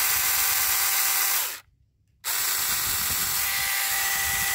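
Saker 4-inch cordless mini chainsaw running free in the hand with no wood to cut: a steady electric-motor and chain whine, not very loud. It cuts off about a second and a half in and starts again about half a second later.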